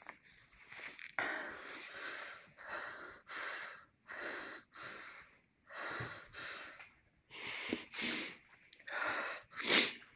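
A person's heavy, rapid breathing close to the microphone, about one breath a second, with the loudest breath near the end.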